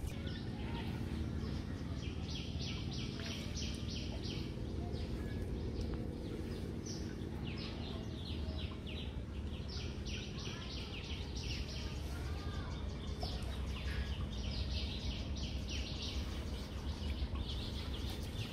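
Small birds chirping in repeated quick runs of high notes over a steady low background rumble.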